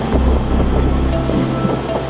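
Narrow-gauge railway carriages running along the track, a steady low rumble of wheels and running gear heard from an open-air car.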